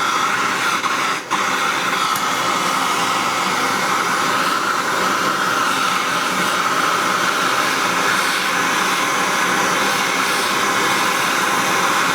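Gas torch flame hissing steadily as it heats the mild-steel cutter blank to orange heat for hardening, with a brief click about a second in.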